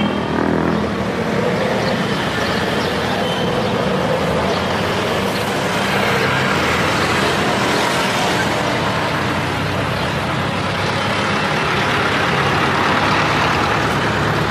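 Road traffic driving past close by: cars, motorcycles and a jeepney making a steady wash of engine and tyre noise, which swells as a vehicle passes about halfway through.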